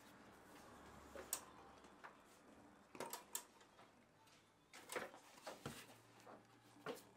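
Soft, scattered knocks and taps of bread dough being portioned by hand: pieces dropped into a plastic bowl on a kitchen scale and set down on a floured table, against a faint room background.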